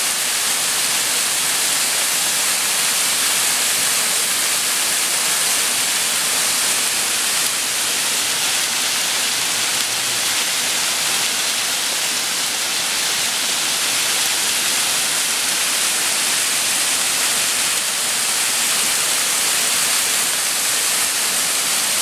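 Waterfall spilling over rock ledges into a pool: a steady, even hiss of falling water.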